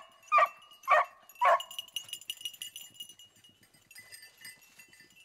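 Beagle giving four short, sharp barks about half a second apart, then only faint high-pitched sounds.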